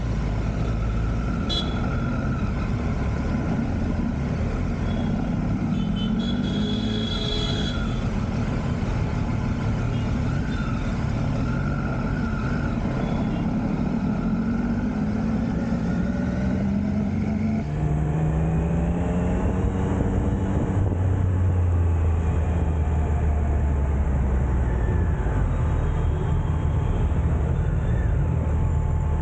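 Triumph Street Triple RS three-cylinder engine riding under load, its pitch rising and falling several times as it accelerates and shifts, over wind rush and the noise of the surrounding road traffic.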